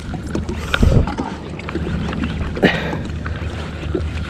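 Sounds of a fishing kayak on open water: water sloshing against the hull over a steady low wind rumble on the microphone, with small knocks, a dull thump about a second in and a short splashy rush nearly three seconds in.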